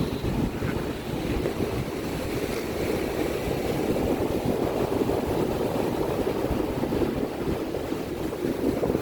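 Ocean surf washing in a steady churning wash, with wind rumbling on the microphone.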